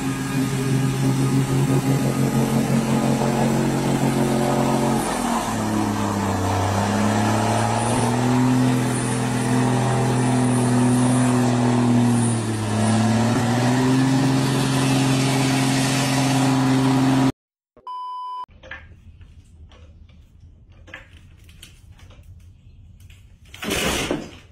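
Heavy diesel engine of a log-laden truck labouring through flood water. Its pitch drops, climbs back and dips once more before the sound cuts off abruptly about 17 seconds in. After that come a short beep, light clicks of a floor jack being pumped, and one loud clank near the end.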